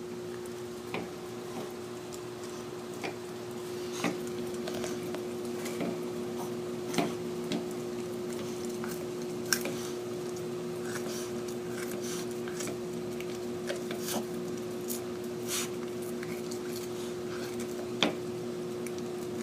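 Yorkshire terrier gnawing on a porterhouse steak bone: irregular sharp clicks and cracks of teeth on bone, with wet chewing between them.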